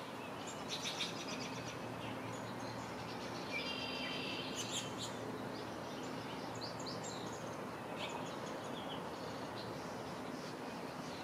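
Several wild birds chirping and calling: scattered short high chirps and trills, with a buzzy drawn-out call around the fourth second. Underneath runs a steady outdoor background hiss.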